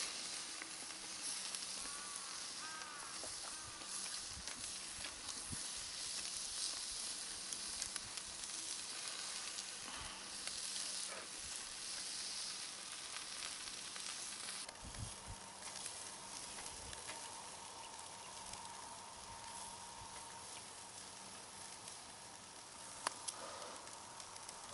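Food sizzling as it cooks over heat: a steady faint hiss with scattered small crackles and pops.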